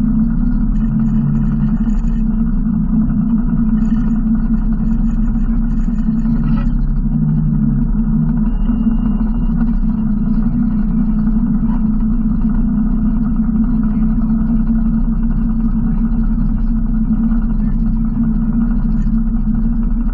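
Yamaha RMAX 1000 side-by-side's parallel-twin engine running steadily while driving along at low speed: a constant, even drone with no revving.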